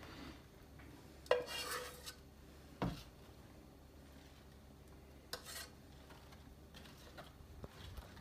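A spoon scraping and spreading thick praline candy out of a metal saucepan onto a parchment-lined baking sheet, with a few knocks of utensil on metal. The loudest is a clink about a second in that rings briefly.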